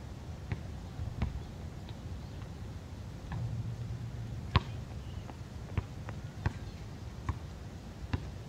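Basketball bouncing on a concrete court: a string of separate sharp thumps, roughly one every half second to a second, with one louder bang about halfway through.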